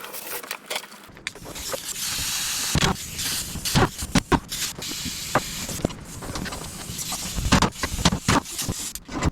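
Air tool spinning off the 12 mm exhaust bracket bolts: a steady hiss of air for over a second, then a run of irregular sharp metal knocks and clanks.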